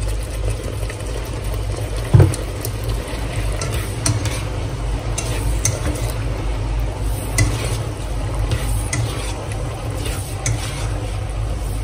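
A slotted spatula stirring and scraping long beans and minced chicken around a nonstick wok of sizzling sauce, with scattered clicks against the pan and one sharper knock about two seconds in. A steady low hum runs underneath.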